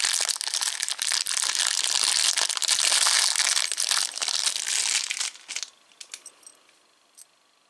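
Packaging crinkling and crackling as it is handled and unwrapped, dense for about five seconds, then a few light clicks before it goes quiet.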